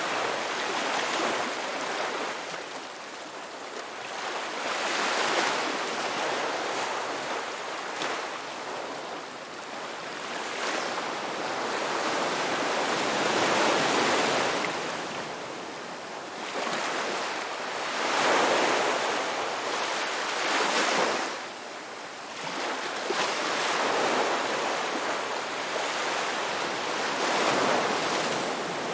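Sea waves breaking on a shore: a continuous wash of surf that swells and ebbs every few seconds.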